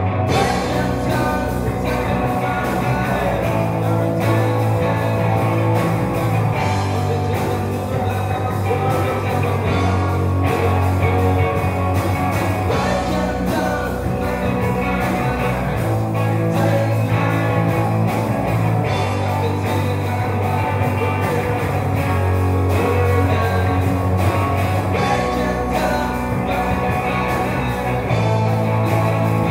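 Rock band playing loudly, with drums, bass guitar and electric guitar.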